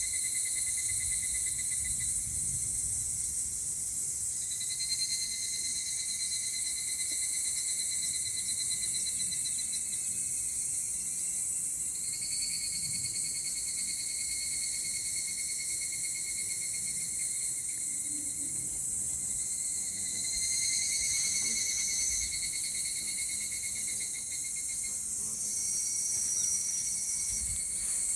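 Chorus of cicadas shrilling steadily in a high hiss, with pitched, buzzing cicada calls that start and stop every few seconds over it.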